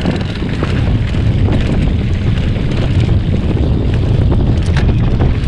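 Trail motorbike on the move: a loud, steady low rumble with wind buffeting the microphone and a few light knocks.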